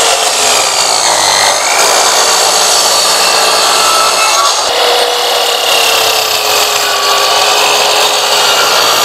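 8-inch sliding miter saw (TNT TSC-0815L) running at full speed and cutting across a wide wooden board: a steady motor whine mixed with the blade rasping through the wood, the pitch wavering slightly as the blade takes the cut.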